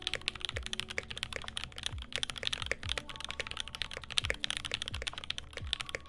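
Rapid, continuous typing on a KL-90 mechanical keyboard fitted with lubed and filmed 67 g Tangerine linear switches on an aluminium plate, a dense stream of sharp key clicks.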